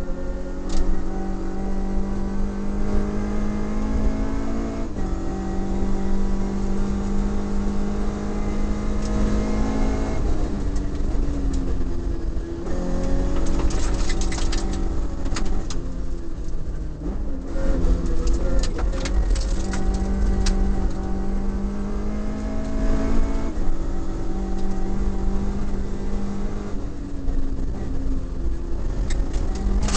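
Toyota Corolla Levin's 4A-GE twin-cam four-cylinder engine at full throttle, heard from inside the cabin: it revs up and drops in pitch at each of several gear changes, over a steady road rumble. A spell of sharp clicks and rattles comes through in the middle.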